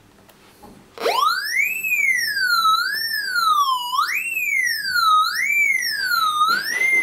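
Raptor pulse-induction metal detector's target tone: about a second in, a pitched tone leaps up sharply, then glides up and down in pitch over and over, like a siren, as metal is passed over its 32D search coil.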